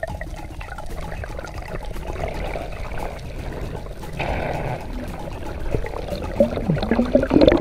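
Water rushing and bubbling against an underwater camera housing as a freediver swims up toward the surface, with a rising gurgle near the end.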